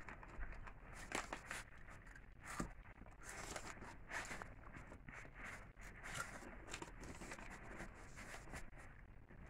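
A puppy chewing and tugging at a rope toy on a padded dog bed: irregular rustling and scratching of fabric, with short sharper scrapes and soft knocks now and then.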